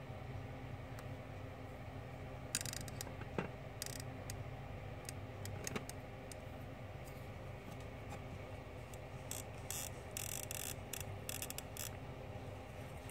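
Steady low room hum with scattered clicks and short rustles of a phone camera being handled, in two clusters: a few around three seconds in and a denser run in the last few seconds.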